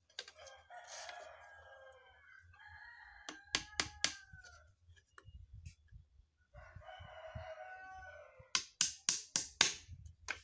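Light hammer tapping nails into thin wooden slats of a cage frame: four taps about a third of the way in, then a quicker, louder run of about seven taps near the end. A rooster crows three times in the background.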